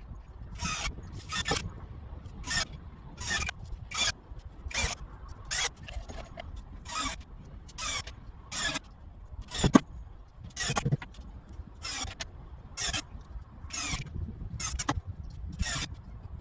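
Repeated scraping strokes on wood, a little under one a second, each lasting a fraction of a second over a low background rumble.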